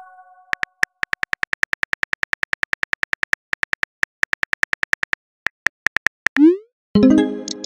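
Phone keyboard typing sound effect: rapid key clicks, about five or six a second with a few short pauses, then a quick rising whoosh as the message is sent, followed by a ringing chime that fades.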